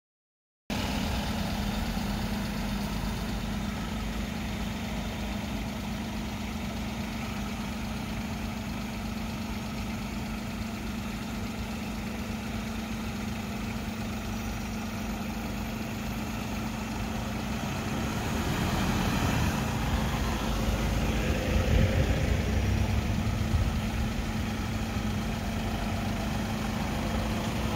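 Safari jeep and pickup engines idling with a steady low hum. About two-thirds of the way through a nearby engine grows louder and rougher for several seconds, as a vehicle moves up close.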